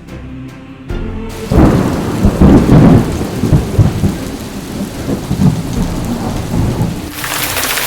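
A long roll of thunder rumbles in about a second and a half in, loudest early and slowly dying away, then a steady hiss of heavy rain comes in near the end.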